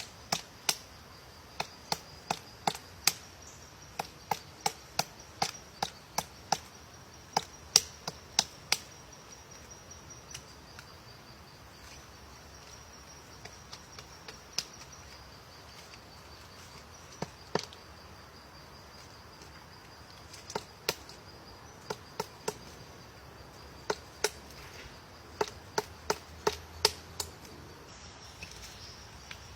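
Woodpecker chiselling into a tree: single sharp knocks at an uneven pace, about one or two a second, with a pause of several seconds midway and a quicker run near the end. A steady high insect buzz runs underneath.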